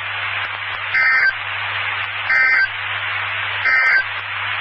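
Three short bursts of NOAA Weather Radio SAME digital data tones, spaced about a second and a third apart, over steady radio hiss. They are the end-of-message code that closes an emergency alert broadcast.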